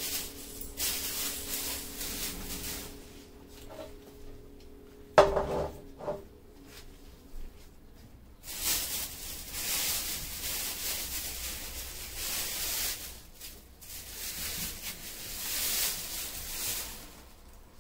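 Plastic shopping bags rustling as groceries are taken out and set down, with one sharp clank and a brief ring about five seconds in as a large metal tin is put down on the tile floor.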